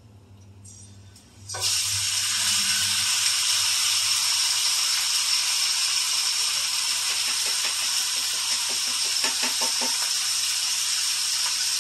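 Raw chicken pieces sizzling in hot oil in a wok, the loud steady hiss starting suddenly about a second and a half in.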